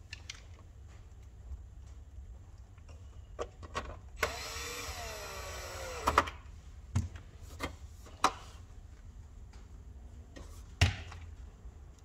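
Power drill runs for about two seconds, its whine wavering and dipping in pitch as it drives a screw back into the NVR's sheet-metal case. Several sharp metallic clicks and knocks follow.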